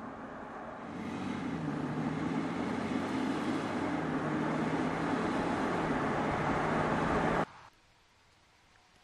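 Audi A5 Cabriolet driving on an open road: engine note over tyre and road noise, growing louder after about a second, then cutting off abruptly near the end.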